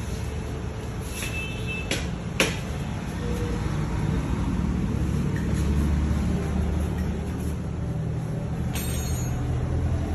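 Steady low rumble of motor vehicles, with two sharp knocks about two seconds in and a brief hiss near the end.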